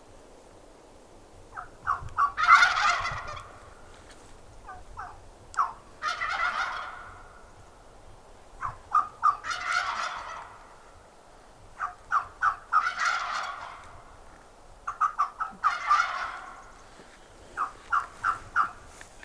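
Wild Merriam's turkey gobbling five times, about every three seconds. Each loud, rattling gobble is led by a quick run of short notes, and one more run of notes comes near the end.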